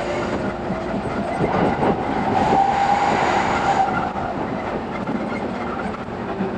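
E217 series electric commuter train running, heard from inside a passenger car: steady rail and running noise, with a whine that rises about a second and a half in and holds until about four seconds in.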